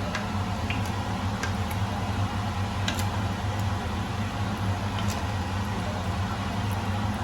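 A steady low machine hum, like a running motor or fan, with a few faint sharp ticks scattered through it.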